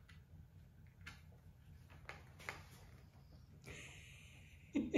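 Faint rustling and soft scratching as a small dog turns round and settles into a blanket-lined box bed, then a brief, louder sound just before the end.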